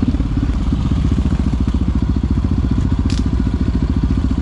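Quad (ATV) engine running at a steady, low-to-moderate speed, its exhaust pulsing in an even rapid rhythm, loud enough that the owner calls it too noisy.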